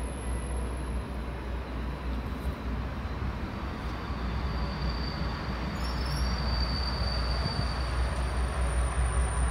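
Passenger train rolling slowly through the station on a far track: a steady rumble of wheels on rail, with a thin high squeal from about four to eight seconds in.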